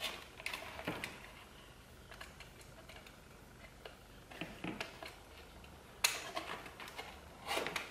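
Dull snap-off utility knife scraping and cutting through a thin cardboard box, in short scratchy strokes and small clicks with the cardboard rustling as it is handled. A sharp scrape about six seconds in is the loudest.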